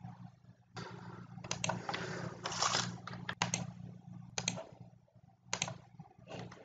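Typing on a computer keyboard: an irregular run of keystrokes and clicks over a low steady hum.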